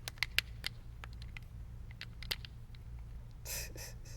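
A few light, sharp clicks and taps, most of them in the first second and one more a little past two seconds, over a steady low hum.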